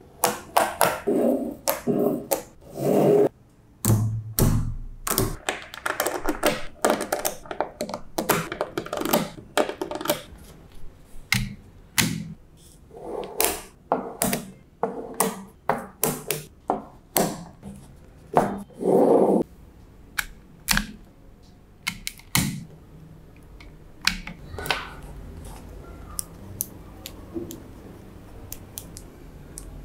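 Small magnetic balls clicking and snapping together, with short rattling runs as clusters of balls are handled and rolled. The clicks come thick and fast at first, then thin out to occasional single snaps for the last several seconds.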